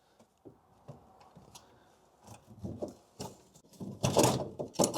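Scattered light clicks and rattles of hand tools and parts being worked on the car body, then a louder clunk about four seconds in, with another knock near the end.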